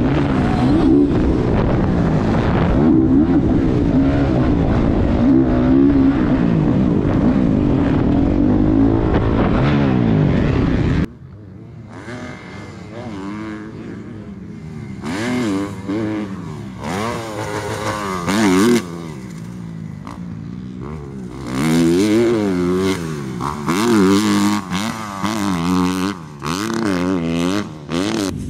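Motocross bike engine running hard on the track, heard on board with heavy wind noise on the microphone. About 11 seconds in it cuts sharply to a Kawasaki KX250 dirt bike heard from trackside, its engine revving up and down over and over through the jumps, with several louder swells as it comes closer.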